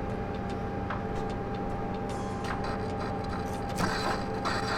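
Nissan 350Z electric radiator cooling fan motor running with a steady hum during a fan test, with a few light clicks. A rushing of air grows louder about four seconds in.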